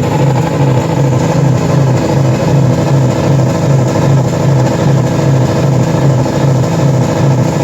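Car engines running steadily at a held throttle, a loud low drone with an even pulsing beat about three times a second.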